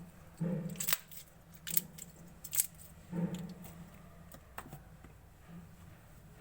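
Clear slime being mixed by hand: a few sharp sticky clicks and pops with short low squelches in between.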